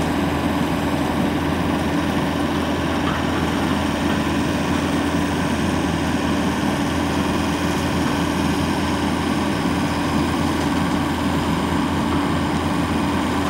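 Wildcat Model 510 Cougar trommel screen running steadily while screening compost, its engine and turning drum giving an even drone at one unchanging pitch.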